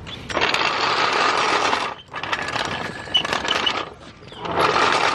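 Power sander running against a car's rusted quarter-panel metal in three bursts of a second and a half to two seconds, with short pauses between them, as the rust is ground off.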